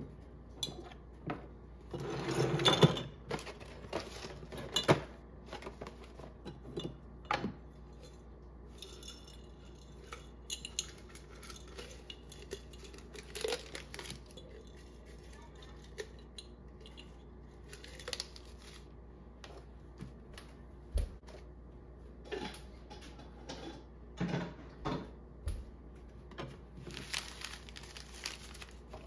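Intermittent clinks, knocks and rustles of dishes and kitchen items being handled, with a longer scraping, rustling stretch about two seconds in and again near the end.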